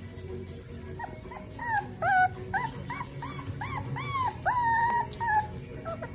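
Young puppies, about four weeks old, whimpering in a quick run of short, high, rising-and-falling cries, about a dozen in a few seconds, with one longer drawn-out whine near the end.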